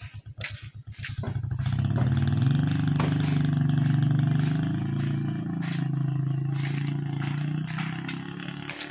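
Motorcycle engine running close by. It grows louder about a second in, holds a steady pitch that rises and dips slightly for several seconds, and tapers off near the end.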